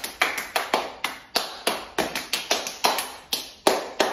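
Quick hand claps and palm-to-palm slaps of a three-person clapping-handshake routine, about four to five a second in an uneven rhythm.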